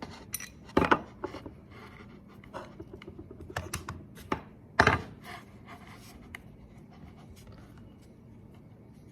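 An adjustable spanner and the air compressor hose connector clicking and scraping as the fitting is unscrewed and handled, with two louder knocks about a second in and near five seconds. The handling noise dies down in the second half.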